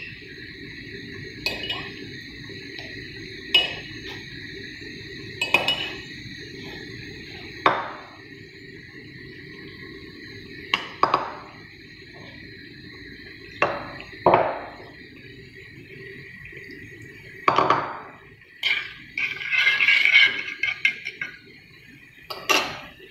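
Kitchen utensils and dishes clinking and knocking against a metal cooking pan, about a dozen separate hits with a busier stretch of clatter near the end, as sugar and water go into the pan for a syrup. A steady high-pitched hum runs underneath.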